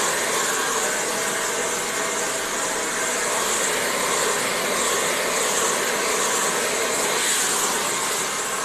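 Steady hissing noise with no clear pitch, strongest in the high range, holding an even level throughout.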